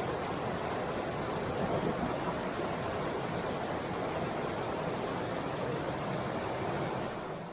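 Small river flowing: a steady rush of running water, starting to fade out at the very end.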